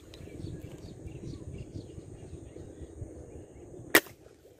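A single sharp crack of an airgun shot near the end, the loudest sound, over low rustling wind noise on the microphone and a steady high insect buzz.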